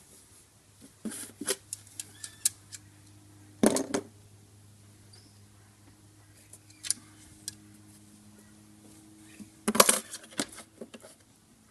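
Small clicks, taps and scrapes of a steel rule, marker pen and silicone hose being handled on cardboard, with two louder scraping bursts, one about a third of the way in and one near the end, over a faint steady hum.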